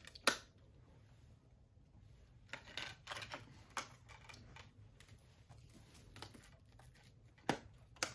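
Clicks and light rustling as a Blu-ray SteelBook case and its contents are handled and closed up: a sharp click just after the start, a run of clicks and rustles around three seconds in, and two more sharp clicks near the end.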